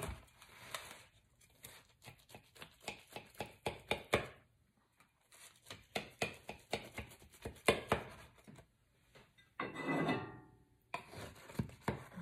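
Knife cutting through a baked cheeseburger pie in a disposable aluminium foil pan: quick, irregular taps and scrapes of the blade on the foil, with a longer scrape a little before the end.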